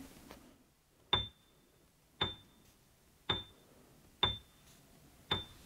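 Five evenly spaced ticks, about one a second, each with a brief high ring, like a clock or timer sound effect counting out the pause for the listener's turn to repeat the word.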